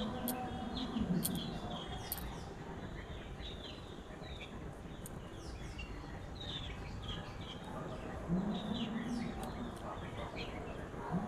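Small birds chirping, many short, quick downward-sweeping calls throughout, with a low drawn-out note near the start and again about eight seconds in.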